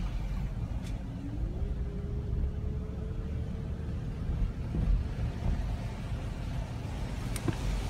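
Low rumble of a car driving slowly on a wet street, heard from inside the cabin, with tyre noise on the wet pavement. A faint tone rises about a second in and then holds steady for a few seconds, and there are a couple of faint clicks.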